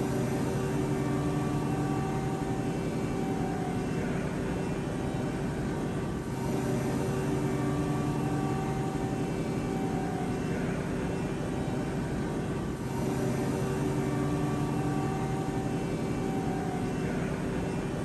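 Mazak Quick Turn 250 CNC lathe running with a steady mechanical hum and whine, in a cycle that repeats about every six seconds with short dips between.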